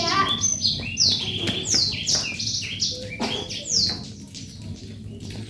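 Small birds chirping: a quick run of high, downward-sliding notes, several a second, that thins out after about four seconds.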